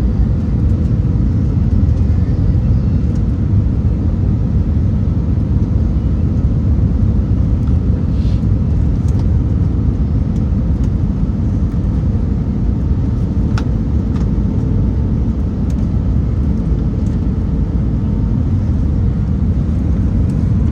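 Steady rumble of an Airbus A319-100's engines and airflow heard inside the cabin, with a faint steady hum and a few light clicks.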